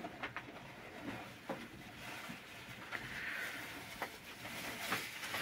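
A fabric bag being opened and rummaged through: rustling with scattered light clicks and a short hiss about three seconds in.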